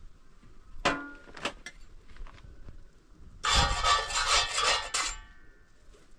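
Metal cooking gear at a wood fire: a ringing metallic clank with a couple of lighter clicks, then about a second and a half of rapid metal-on-metal scraping and rattling against the wire grill and griddle.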